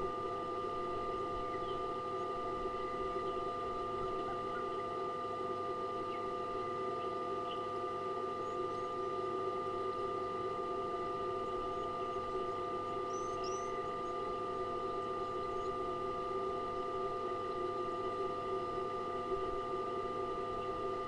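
A steady hum made of several held tones, unchanging throughout, with a few faint high chirps around the middle.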